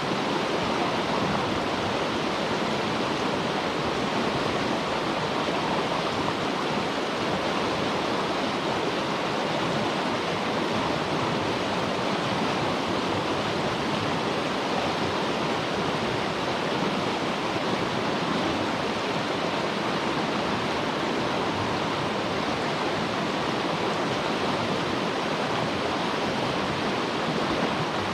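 Steady rushing of water, an even hiss with no breaks or rhythm.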